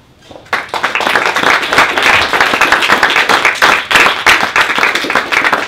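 Applause from a small seated audience, starting about half a second in and quickly building to a steady, dense clapping.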